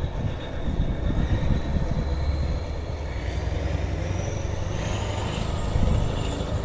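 Kirovets articulated tractor's diesel engine running with a steady low rumble as it drives across the yard. A high whine rises in pitch from about two seconds in.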